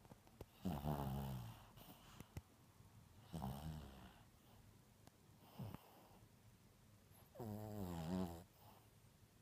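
Maltese puppy snoring in its sleep: three drawn-out snores a few seconds apart with a wavering pitch, and one short snort between them.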